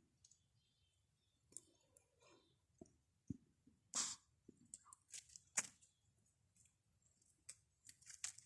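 Faint, scattered clicks and rustles, irregular and short, the loudest about four and five and a half seconds in and a quick cluster near the end.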